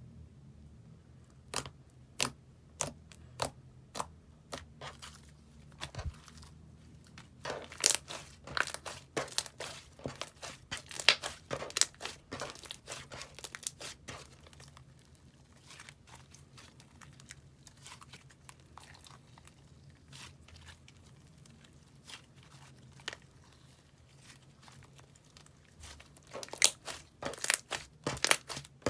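Slime being squeezed and pressed by hand, giving sharp crackling clicks and pops. They come in uneven runs, a few scattered at first, a dense run about a third of the way in and another near the end.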